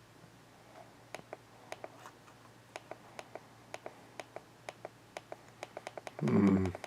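Computer mouse button clicked repeatedly, irregular sharp clicks two or three a second. A short, louder vocal noise from a man comes near the end.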